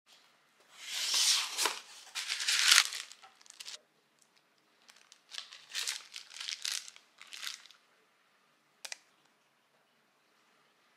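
Crinkling and tearing in two bursts of about three seconds each, then a single sharp click about nine seconds in.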